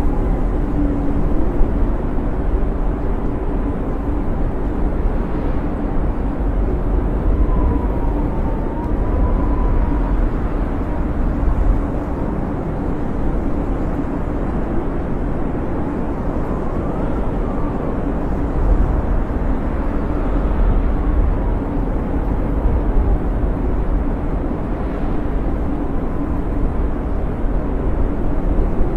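Blizzard wind blowing with a steady deep rumble, with faint whistling howls that rise and fall in pitch around eight, seventeen and twenty-one seconds in.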